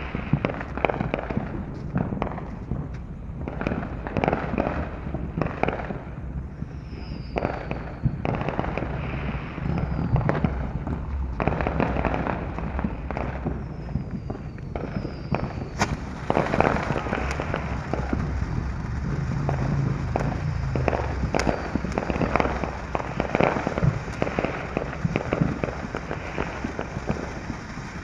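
Phantom Fireworks Vibrant Voltage ground fountain firework burning, a steady spray of sparks with dense, irregular crackling and popping throughout.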